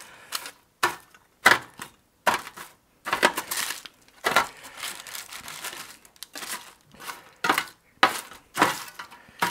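Metal spatula chopping and scraping through crispy roasted smashed potatoes in a stainless steel roasting pan. About a dozen crunchy strokes come at an uneven pace.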